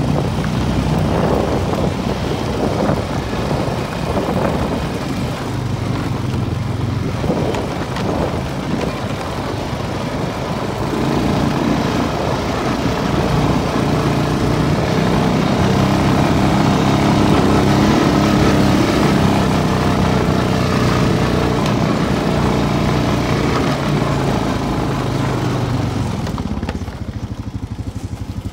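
2012 Honda Foreman 500 ATV's single-cylinder engine running as it is ridden. It gets louder through the middle and eases off near the end.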